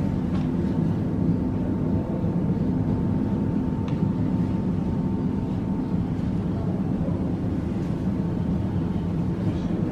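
Steady low rumble of indoor gallery ambience, with a faint steady tone for most of the first seven seconds.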